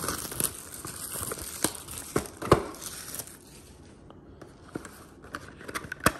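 Cellophane shrink-wrap on a cardboard trading-card box being slit and pulled off, crinkling with sharp crackles, loudest about two and a half seconds in. It goes quieter after about four seconds, with a single click near the end.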